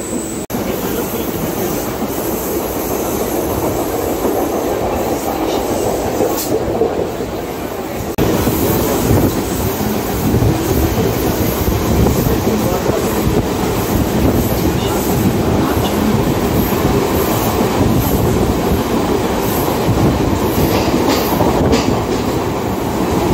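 Mumbai suburban local train running on the tracks, heard from aboard: steady wheel-and-rail running noise with clickety-clack. The noise steps up in loudness about eight seconds in.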